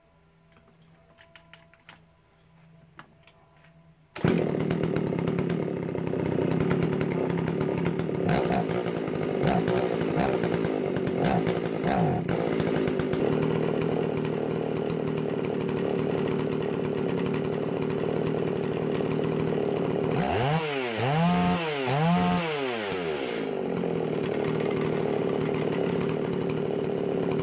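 Old Husqvarna two-stroke chainsaw starting up about four seconds in and then idling. It is revved lightly a few times, then three quick revs in a row near the end, before it cuts off. This is its first run after being repaired.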